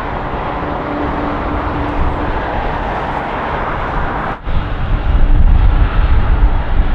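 Jet engines of a taxiing Boeing 747 freighter running at low power, a steady rushing roar with a faint whine. The sound drops out for a moment about four seconds in and comes back with a heavier, gusty low rumble.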